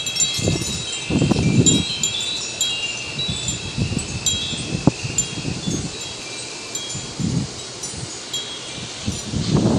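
Wind chimes tinkling continuously in the wind, with many overlapping high ringing notes. Irregular low gusts of wind rumble on the microphone beneath them.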